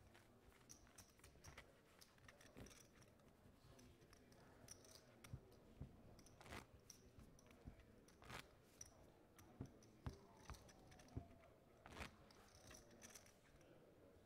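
Near silence with faint, scattered sharp clicks, about a dozen, typical of clay poker chips being handled and clacked together at the table.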